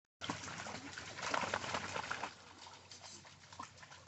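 A dog's paws splashing and stepping through a shallow, rocky stream, with irregular splashes that are loudest in the first two seconds and then fainter.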